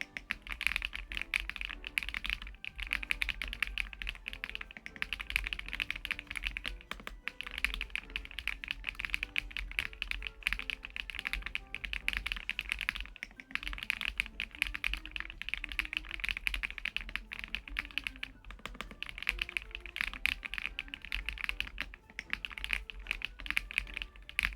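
Continuous fast typing on a LUMINKEY LUMINO75 gasket-mounted, aluminium-case 75% mechanical keyboard: a dense run of key clacks with a few brief pauses. Soft background music plays underneath.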